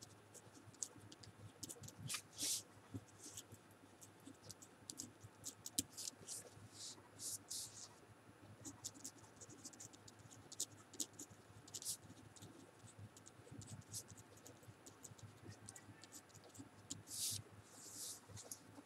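Pen writing on paper: faint, quick scratching strokes in an irregular run as words are handwritten.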